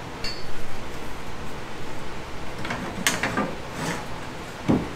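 Deck boards and hand tools being handled on a fiberglass boat deck: a short click at the start, a run of clattering knocks about three seconds in, and a dull thump near the end.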